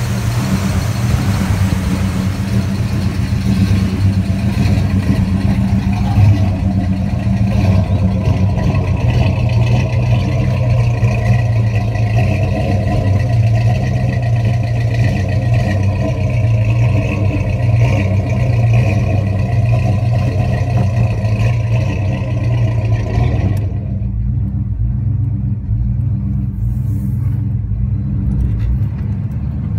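1970 Pontiac GTO's V8 idling steadily through its dual exhaust, with an even, unchanging note. About three-quarters of the way in it is heard from inside the closed cabin, duller and without its hiss.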